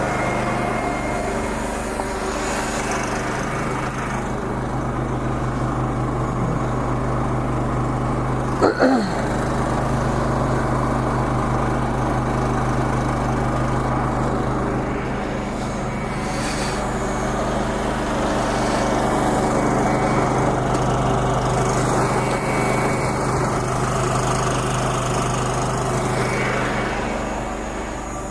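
An engine running steadily with an even low hum, and a brief falling squeak about nine seconds in.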